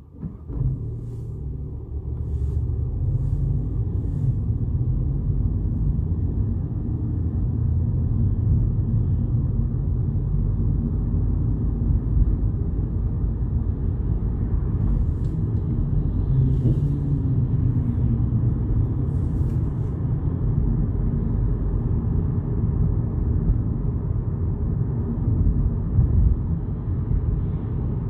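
A 2022 VW Polo GTI driving, heard from inside the cabin: a steady low rumble of road and engine noise, with a few faint ticks in the first few seconds.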